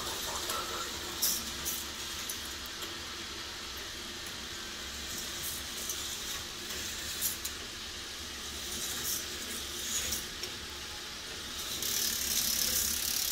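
K'NEX roller coaster model running: a steady whirring hiss and low hum from its lift chains and motors, with scattered clicks and rattles of cars on the plastic track. The hiss gets louder near the end.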